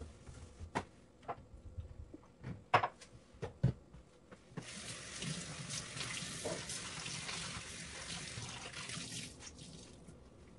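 A few sharp knocks and clinks, then a kitchen tap running into the sink for about five seconds before it is turned off.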